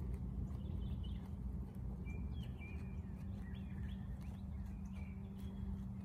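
Small birds chirping in short, scattered calls over a steady low hum and rumble, with faint scattered clicks.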